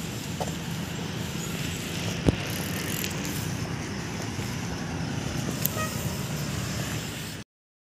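Steady roadside traffic noise with a low rumble, one sharp click about two seconds in; the sound cuts out abruptly to silence near the end.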